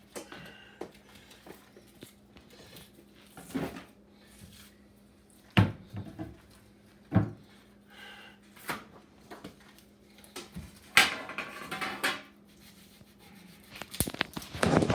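Kitchen handling sounds: scattered knocks and clunks of things being set down and moved, with a longer scraping rustle a little past the middle, over a faint steady hum.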